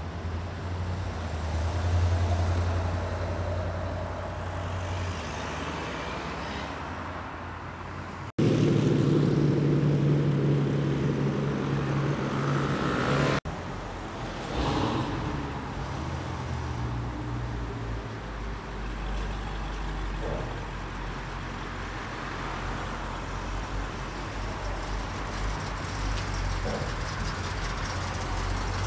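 Car engines driving slowly past one after another, in several clips joined by abrupt cuts: a C3 Corvette's V8 with a low steady note, then a louder, deeper engine note for about five seconds that stops at a sudden cut, then further cars including a Dodge Challenger pulling away.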